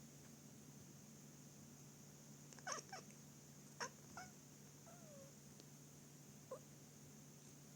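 A cat giving a handful of short, quiet calls, about six brief meows spread over a few seconds, one of them sliding down in pitch.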